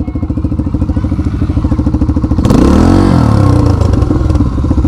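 Dirt bike engine close to the microphone, idling with an even pulse, then revved up and back down about two and a half seconds in, after which it runs a little faster and louder.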